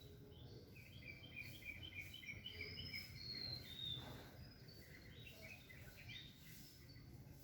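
Small birds chirping: a quick run of repeated high chirps from about a second in, a thin high whistled note near the middle, then more chirps, over a faint low rumble.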